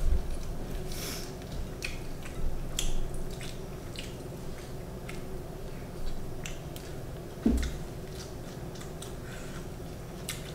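Eating sounds: chewing and lip-smacking with many small, scattered wet clicks, and a single thump about seven and a half seconds in.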